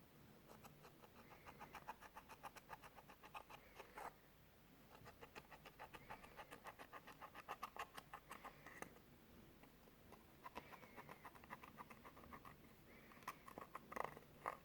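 Clear slime being worked by hand: three runs of quick, soft sticky clicks and pops, several a second, with short pauses between.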